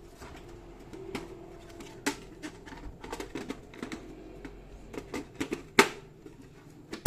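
Irregular clicks, taps and knocks from a Dell Vostro 3668 desktop PC case being handled and closed up, with one sharp, loud click about six seconds in.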